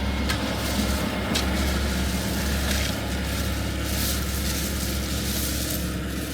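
Heavy construction machine's diesel engine running steadily as a low rumble, with a few short knocks or clicks over it.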